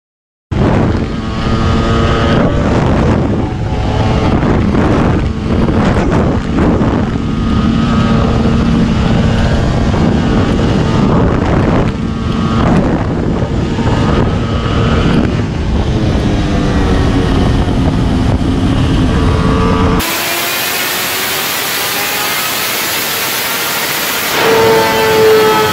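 Ducati Panigale V4 Speciale's V4 engine running hard at road speed, heard from on board, its pitch rising and falling. About twenty seconds in it cuts to a Kawasaki Ninja H2 on a dynamometer: a steadier hissing engine sound that grows louder near the end as the engine is revved.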